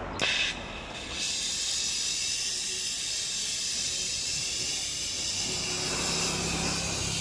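Brazing torch flame hissing steadily as it heats a pipe joint on a rotary refrigeration compressor. A short burst comes just after the start, then the steady hiss from about a second in.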